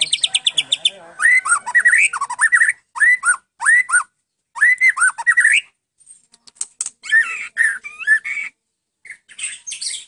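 White-rumped shama (murai batu) singing a varied song: a fast descending trill that ends about a second in, then loud whistled phrases of rising-and-falling notes in quick groups, a short pause, and more phrases near the end.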